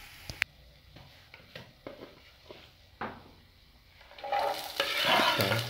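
A few light clicks and knocks of a knife and plate, then about four seconds in sliced green chilies hit hot oil and garlic in an enamel frying pan and start sizzling.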